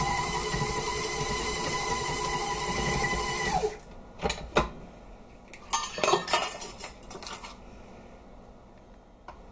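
Stand mixer motor running steadily as its flat beater turns through stiff cookie dough, then switched off about three and a half seconds in, its whine falling away. Then a few sharp clicks and clanks as the beater is handled against the steel bowl.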